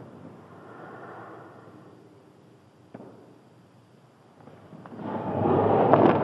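A karate roundhouse kick: the swish of the karate uniform swelling over about a second to a loud peak near the end, as the kick reaches the belt held up as a target.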